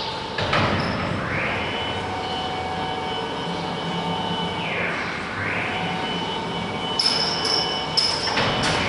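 CNC wood router's axis drive motors whining as the gantry travels. The pitch rises about a second in, holds steady, falls away near five seconds, then rises again for another run over a steady machine hum. A few sharp clicks near the end.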